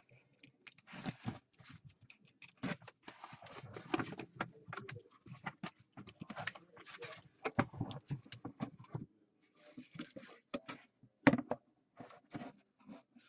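A cardboard shipping case being opened by gloved hands: its flaps are pulled back and the boxes inside slid out, making a string of irregular scrapes, rustles and knocks. The sharpest knock comes about 11 seconds in.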